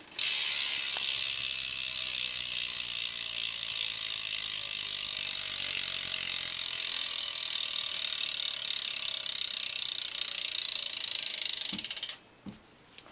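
G-Sport Ratchet cassette hub on a BMX rear wheel freewheeling, its pawls clicking so fast they make a loud, steady buzz. It stops abruptly near the end, followed by a couple of faint clicks.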